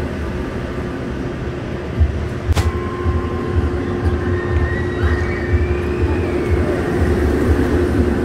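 Steel roller coaster train rolling along its tubular track, a steady rumble that grows a little louder as the cars pass close by near the end. A sharp click about two and a half seconds in is followed by a steady hum. The ride sounds smooth.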